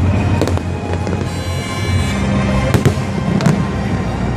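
Aerial fireworks shells bursting: sharp bangs about half a second in and several more near three seconds, over a continuous low rumble of other bursts.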